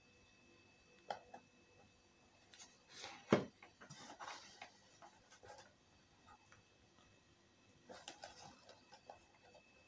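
A plastic cable tie being pulled tighter around a black plastic intercooler cowling from an Audi TT Mk1: scattered faint clicks and light handling knocks, with one louder knock about three and a half seconds in and a run of small clicks near the end.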